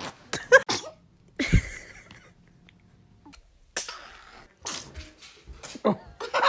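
A baby's sneezes: several short, sharp sneezes, one after another.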